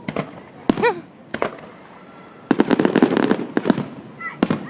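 Fireworks going off: three separate sharp bangs, then a rapid string of firecracker pops lasting over a second, then one more bang near the end.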